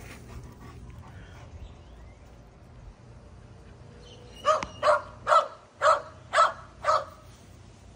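A dog barking six times in a quick run, about two barks a second, starting a little past halfway through.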